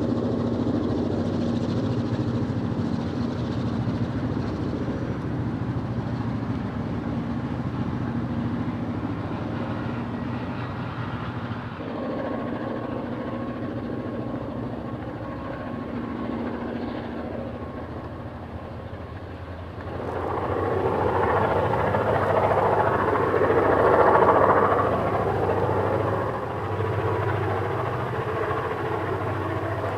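EMD two-stroke diesel locomotives working a heavy train, their engines running with a steady low throb. About two-thirds of the way through the sound suddenly becomes louder and rougher.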